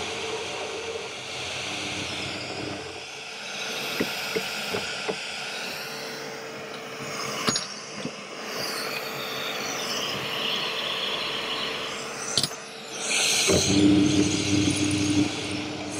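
Pillar drill motor running with a cutter milling a Woodruff key slot in steel. The hum drops away about three seconds in, leaving a few sharp clicks and knocks, and comes back loud near the end.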